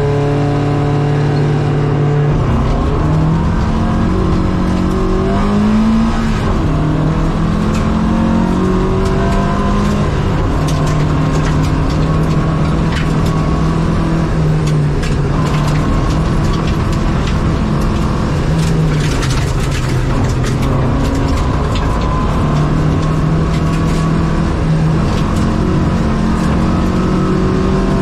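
Opel Rallye Kadett rally car's engine heard from inside the cabin. It holds revs at the start line, launches about two seconds in and climbs through the gears, dropping in pitch at each upshift, then runs hard at high revs at speed on gravel, with scattered sharp clicks.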